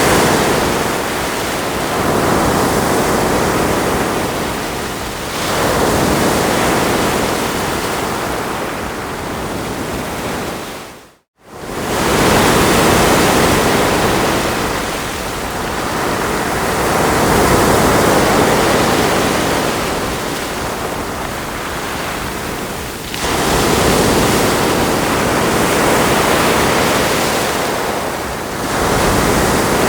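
Ocean surf: waves breaking and washing up the shore, swelling and easing every few seconds. About a third of the way in the sound fades out to silence for about half a second and then comes straight back.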